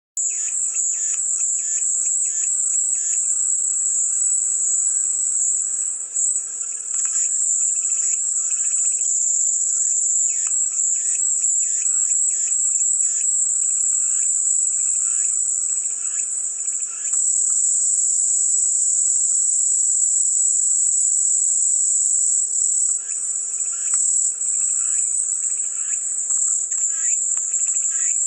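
Cicadas droning in a continuous, loud, high-pitched buzz. A lower, rapidly pulsing call runs alongside it, pausing for several seconds in the middle.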